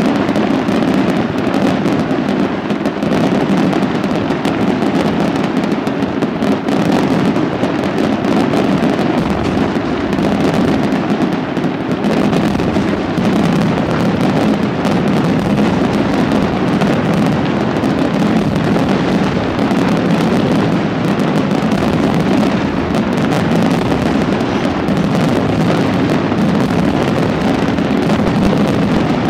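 Aerial fireworks display: shells and crackling stars bursting in a rapid, unbroken barrage, loud and without pauses.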